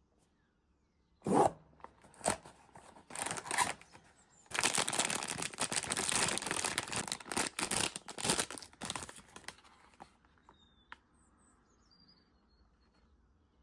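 Blind-box packaging being opened by hand: a sharp knock about a second in and a few short handling sounds, then several seconds of dense tearing and crinkling of the wrapper, which trails off near the end.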